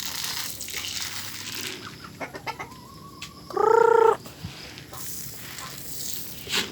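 Chickens clucking while they feed, with one loud, drawn-out call about halfway through.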